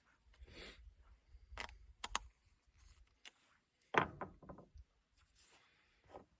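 Hand-assembly noise from the rain gauge mount: a brief rustle, a few sharp clicks, and one louder knock about four seconds in, as the nuts on the mounting screws are tightened with a nut driver and the plastic and metal parts are handled.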